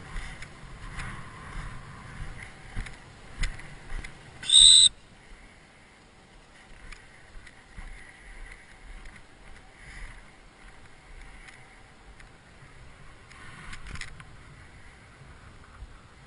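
A single short, sharp blast on a dog-training whistle, a high piercing tone with a second tone above it, about four and a half seconds in. Faint scuffs and rustles come before it.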